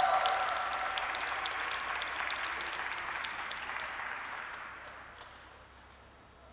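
Audience applauding, many separate claps at first, dying away over the last two seconds.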